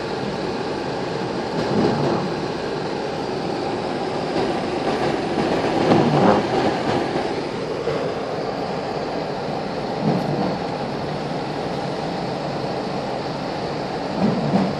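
Steady rain, a dense even hiss, with a few brief louder swells through it.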